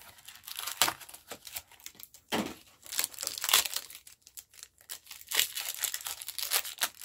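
Foil wrapper of a Pokémon card booster pack crinkling and tearing as it is handled and opened, in irregular crackly bursts.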